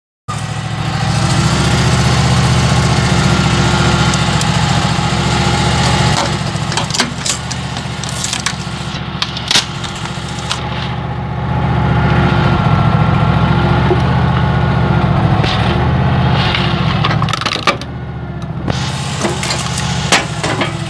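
A motor-driven machine running steadily, with a strong low hum and a faint whine above it. It is louder for the first six seconds and again from about twelve to seventeen seconds in, with a few clicks near the end.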